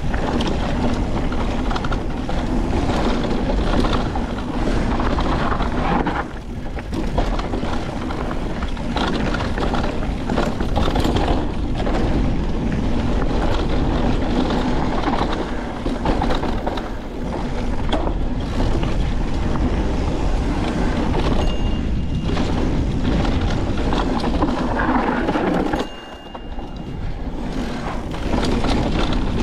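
Niner WFO e9 electric mountain bike riding fast down a rough, rocky singletrack: continuous clatter and rattle of the bike and tyres over rocks and dirt, with wind on the microphone. There are brief lulls about six seconds in and again near the end.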